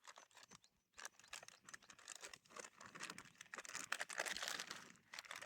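Crinkling and rustling of MRE packaging: the food pouch and heater bag being handled in their sleeve. It grows louder after about two seconds.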